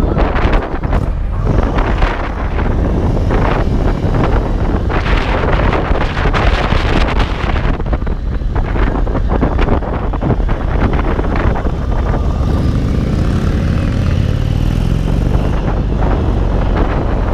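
2022 Indian Springfield Dark Horse's air-cooled Thunder Stroke 116 V-twin running under way, with wind buffeting the microphone. The engine note rises in pitch over a few seconds near the end as the bike accelerates.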